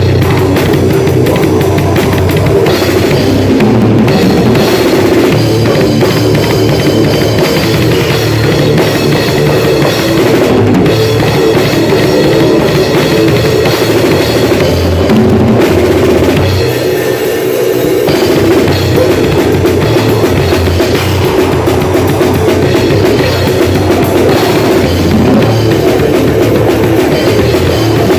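Drum kit played hard and without a break, bass drum, snare and cymbals together, very loud, with the bass drum dropping out briefly about seventeen seconds in.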